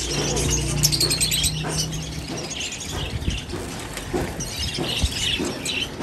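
Many small cage birds, zebra finches among them, chirping, with quick high chirps overlapping throughout. A low steady hum runs under them for the first two seconds.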